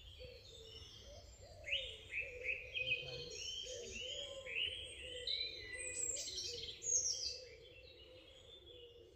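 Songbirds singing: a run of quick, falling chirps for several seconds, over a faint steady hum.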